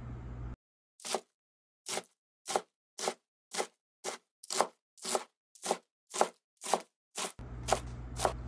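Knife chopping on a cutting board: a steady run of about a dozen sharp chops, roughly two a second, set against dead silence, with a steady low hum returning for the last two chops.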